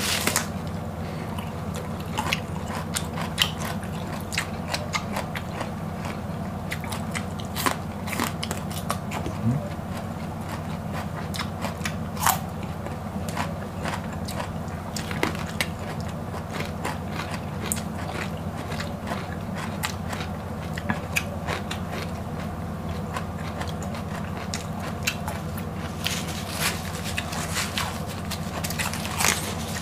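Two people biting into and chewing raw whole cucumbers: irregular crisp crunches and chewing clicks, closely miked, over a steady low hum.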